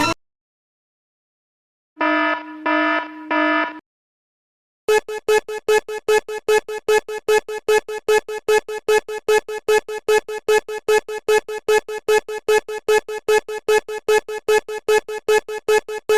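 Japanese railroad crossing warning bell: a long, steady run of electronic bell-like dings at about three a second, starting about five seconds in. About two seconds in, before it, come three short lower-pitched tones.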